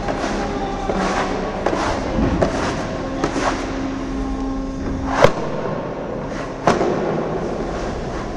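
Irregular sharp knocks and cracks over a steady noisy background, the loudest crack about five seconds in and another strong one near seven seconds, with a low held tone for a couple of seconds in the middle.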